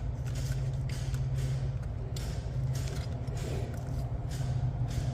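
Faint clicks and knocks of fuel injectors being handled and pressed into a fuel rail, over a steady low hum.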